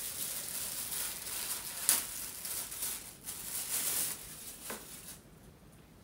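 Crinkling and rustling of a thin plastic packaging bag as the FM antenna wire is unwrapped from it, with a couple of sharper crackles. It dies away about five seconds in.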